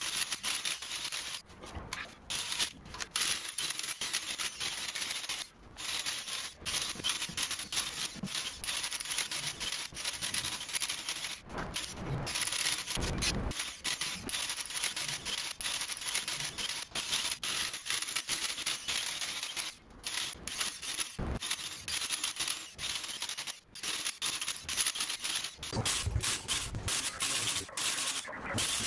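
Electric tufting gun running in bursts with brief pauses between, punching yarn through the backing cloth on the frame.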